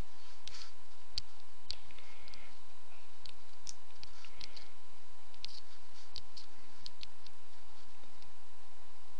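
Computer mouse clicking, a dozen or more sharp clicks at irregular intervals, sometimes two or three in quick succession, over a faint steady hiss.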